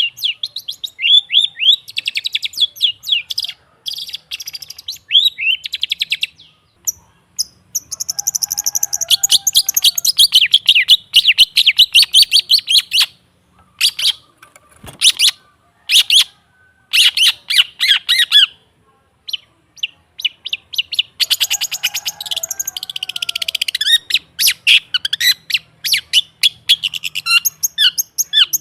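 Long-tailed shrike (cendet) calling in fast runs of sharp, harsh chattering notes. The runs come in bursts separated by brief pauses.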